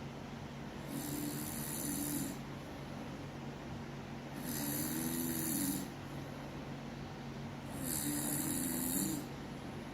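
A person snoring on purpose: three snores about three seconds apart, each a little over a second long, over the steady hum of a room air conditioner.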